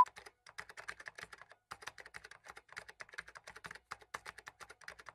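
Computer keyboard typing: a quick, irregular run of faint keystroke clicks, about ten a second, as the on-screen text is typed out letter by letter.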